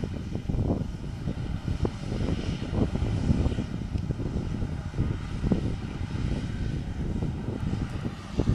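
Claas Jaguar 850 forage harvester running as it chops a heavy first cut of grass silage. A steady engine drone sits under heavy wind buffeting on the microphone, which comes in irregular low gusts.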